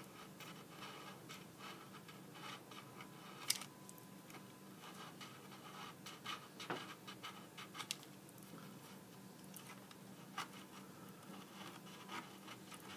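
Faint scraping and clicking of a razor knife shaving hardened epoxy filler off the edge of a board in short, irregular strokes, with a few sharper clicks among them.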